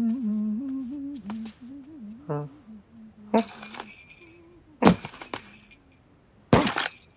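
A person humming a wavering tune for about three seconds, then three sudden glassy jangling crashes, each about a second and a half apart, like ornaments being knocked about.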